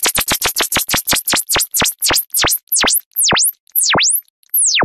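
Electronic sweep sound effect: a pure tone swooping down and back up over and over, first so fast it buzzes, then slowing steadily so each swoop is longer and further apart.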